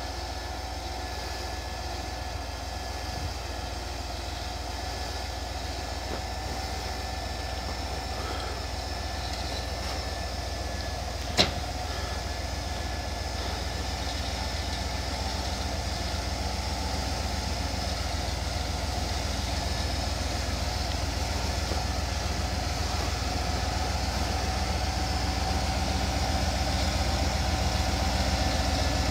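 Engine of a lifted 4x4 off-road truck running steadily at low revs as it crawls through deep snow, growing gradually louder as it approaches. A single sharp click about eleven seconds in.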